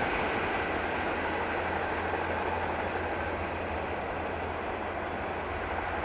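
Freight train wagons rolling past on the rails: a steady noise of steel wheels on track.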